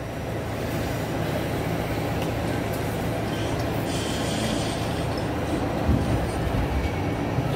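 Steady low rumble and hum inside a New York City subway car on the B line, with a few low knocks about six seconds in.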